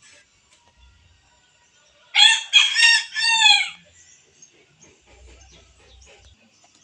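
A rooster crowing once, about two seconds in: a single crow of about a second and a half in several arching notes.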